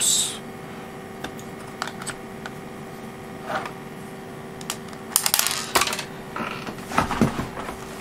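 A small metal screw drops and clinks on the desk with a brief bright ring. This is followed by scattered light clicks and taps from handling small screws and a clear acrylic case, with a cluster of them about five seconds in and more near the end.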